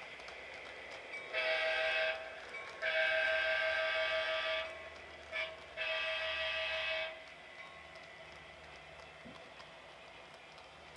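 Diesel locomotive horn reproduced by the sound decoder's small speaker in an HO-scale Athearn GP7U model, sounding two long blasts, a short one and a long one: the grade-crossing signal. A steady, fainter idling prime-mover sound runs underneath.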